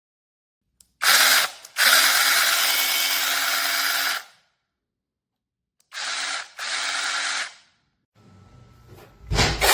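DEHANTOOLS 12-inch brushless battery chainsaw running in trigger bursts: a short burst about a second in, then a steady run of about two and a half seconds, then two shorter, quieter bursts. A loud low bump near the end.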